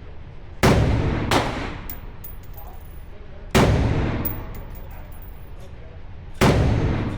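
Four single gunshots, the first two close together and the others a few seconds apart, each with a short echoing decay. Light metallic clinks follow the shots.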